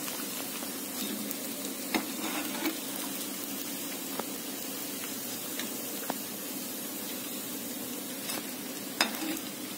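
Idli cubes deep-frying in hot oil: a steady sizzle, with a few short light clicks of the metal skimmer against the pan, the sharpest about two seconds in and near the end.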